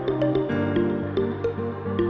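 Background music: a light melody of short notes over sustained lower tones.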